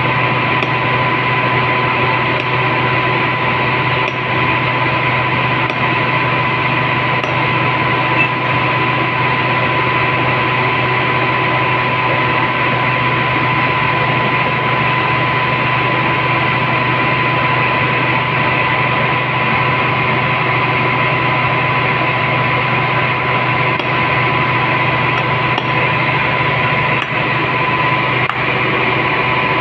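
A steady loud hiss with a constant high whine running through it, masking almost everything else. Faint light taps of a hammer on a punch, cutting a gasket from jointing sheet, come every second or two.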